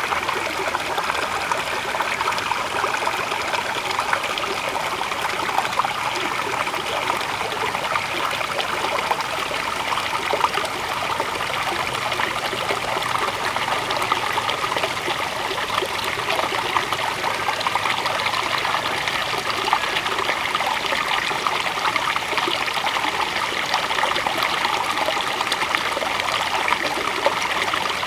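River water flowing steadily, a continuous trickling rush with no let-up.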